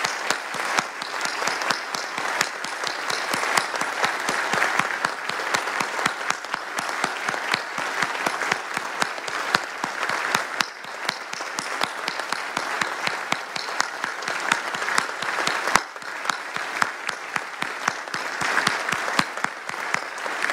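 A large standing audience applauding steadily, many hands clapping at once in a dense, unbroken crackle.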